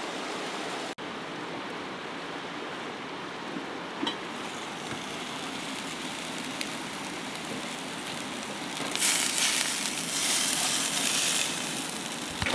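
Blackened salmon fillets sizzling steadily in a cast-iron grill pan on a gas grill, louder for a couple of seconds near the end.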